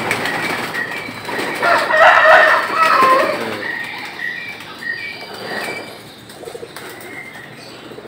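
Doves fluttering and flapping their wings inside a wire aviary, loudest about two seconds in, followed by a few short, high bird chirps.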